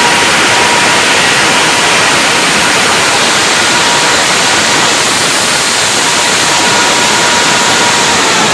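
Large 890 kW diesel generator set running steadily at speed: a loud, even roar with a faint steady whine over it. Right at the very end the whine begins to drop in pitch.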